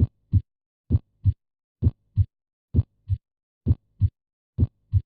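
Heart sounds beating at about 65 per minute: six regular pairs of short thumps, the first heart sound (S1, 'lub', closure of the mitral and tricuspid valves) followed about a third of a second later by the second (S2, 'dub', closure of the aortic and pulmonary valves), with silence between the beats.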